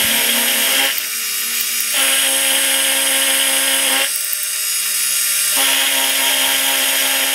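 Warco milling machine running, its end mill cutting into a steel block. A steady machine hum with a harsher cutting sound over it that drops out twice, about a second in and again around four seconds in.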